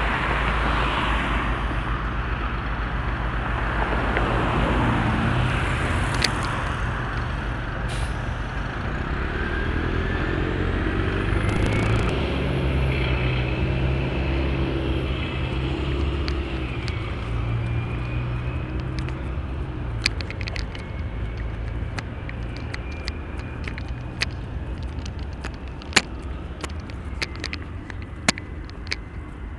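Diesel locomotives of a Union Pacific rock train running with a steady low engine drone, mixed with road traffic noise. A faint high whine drifts up and down in the middle, and sharp clicks come in the last third.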